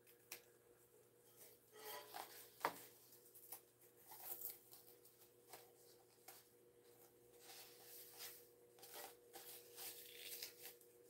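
Faint rustling and crinkling of a stiff vinyl bag lining being handled, with scattered light scrapes as the side seams are pressed open by hand and with a pointed tool.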